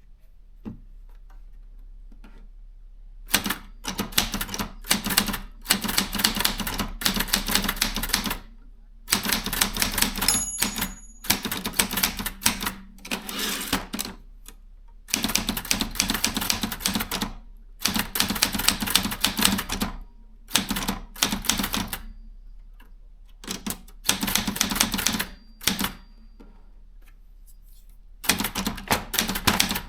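Brother 440 TR typewriter being typed on: after a few seconds of low steady hum, runs of fast key strikes in bursts of a second or two, broken by short pauses.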